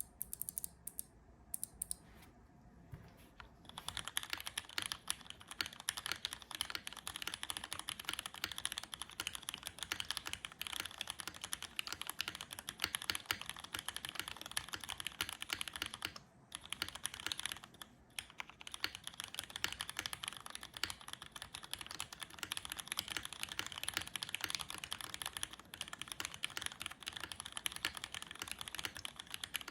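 Typing on a Novelkeys NK87 aluminium mechanical keyboard with lubed Cherry MX Black linear switches, an aluminium plate and GMK keycaps: a few separate keystrokes at first, then fast continuous typing from about four seconds in, with short pauses twice.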